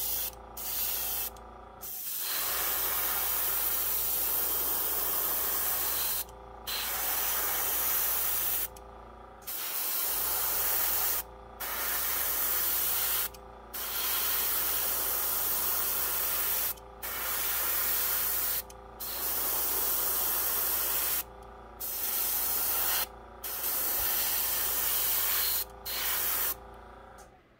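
Gravity-feed airbrush spraying a thinned antique-white base coat onto a wooden lure: a hiss of air and paint in repeated bursts of one to three seconds, each cut off sharply as the trigger is let go.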